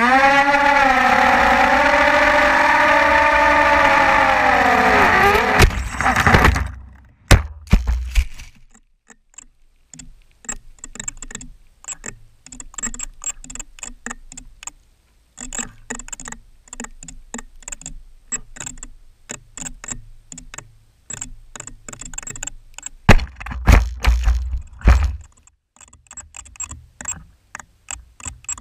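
FPV racing quadcopter's motors whining, the pitch dipping and climbing again, then cut off about six seconds in by a crash into brush with a few sharp knocks. After that, scattered faint clicks and ticks from the downed drone, with a couple of seconds of loud low rumbling and buffeting about twenty-three seconds in.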